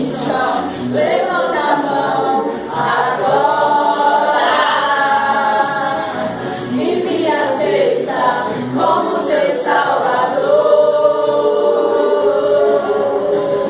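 Gospel song with several voices singing together, played as dance music.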